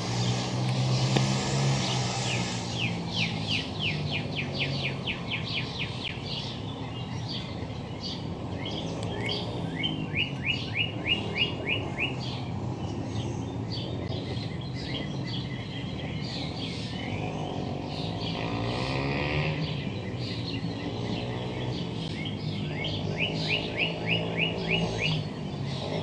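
Small songbirds singing: repeated rapid trills of short high chirps, several a second, in three runs with scattered chirps between. A low steady rumble runs underneath.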